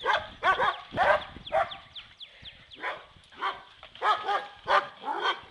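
Dogs barking during rough play: short barks about every half second, with a few thin, high falling notes about two seconds in.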